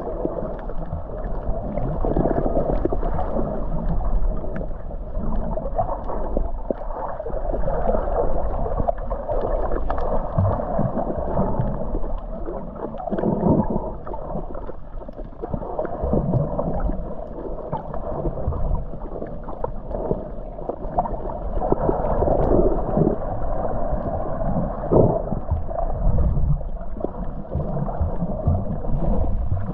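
Underwater water noise heard through a camera's waterproof housing while snorkeling: a muffled, steady gurgling rush with small irregular knocks and swirls throughout.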